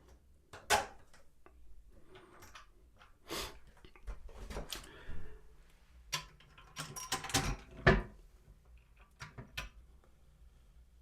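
Scattered clicks and knocks of toilet-seat mounting hardware, plastic parts, washers and bolts, being handled and fitted, with a sharper knock about a second in and another near eight seconds in.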